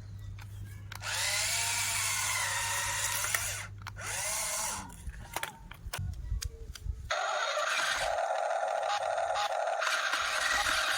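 Small electric motors of remote-control construction models whining, rising and falling in pitch, with scattered clicks from about five seconds in; a steady higher hum takes over about seven seconds in.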